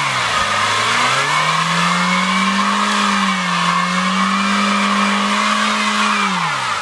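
A car engine is held at high revs in a burnout, with the tyres squealing steadily against the pavement. The engine note climbs about a second in, holds with a slight dip midway, then drops as the throttle is let off near the end.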